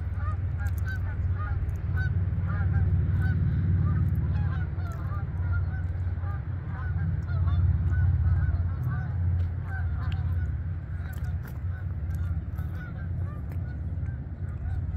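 A flock of geese flying over, honking many times in quick succession, the calls thinning out toward the end. A steady low rumble runs underneath.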